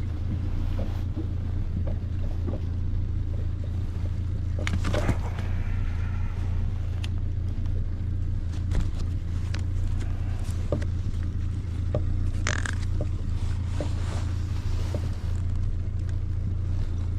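Steady low drone of a boat's motor running, with scattered knocks and scrapes in the boat as a caught salmon is unhooked and measured.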